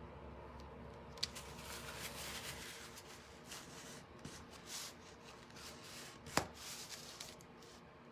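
A paintbrush and then a crumpled paper towel rub and rustle against a thin wooden star cutout, wiping brown paint back so it looks like stain. There are two sharp taps, a small one about a second in and a louder one about six seconds in.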